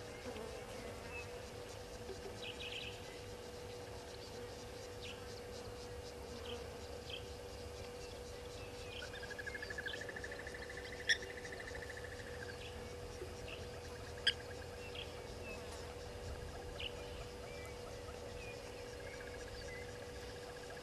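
Outdoor insect ambience over a steady low hum, with scattered short high chirps. A rapid trill runs from about nine to twelve seconds in, and two sharp clicks, the loudest sounds, come a few seconds apart near the middle.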